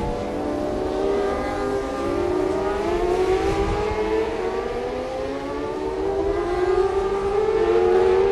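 Engines of 600cc supersport racing motorcycles at high revs. Several notes overlap, climbing slowly in pitch, dropping back about halfway through and climbing again.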